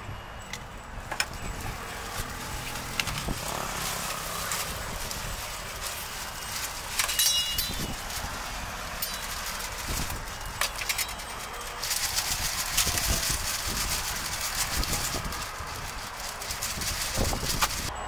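Street-cart cooking sounds: repeated light clicks and knocks of utensils over a steady hiss, with a brief high squeak and, about two-thirds of the way through, a louder hiss lasting several seconds.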